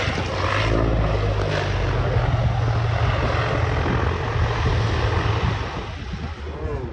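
C-123 Provider's propeller engines running loudly as the plane comes in to land, with a heavy low rumble underneath; the sound fades away over the last second or so.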